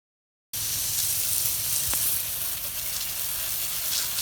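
Garden hose spraying water onto a packaged HVAC unit's condenser coil, rinsing out the foamed coil cleaner: a steady hiss that starts abruptly about half a second in.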